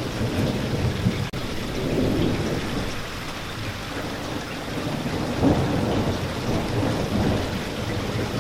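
Steady rain with a low rolling rumble of thunder, swelling about five and a half seconds in. There is a momentary dropout just over a second in.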